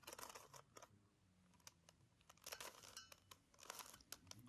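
Faint plastic clicking of a 3x3 Rubik's cube as its layers are turned, in three short flurries: at the start, past the middle, and near the end.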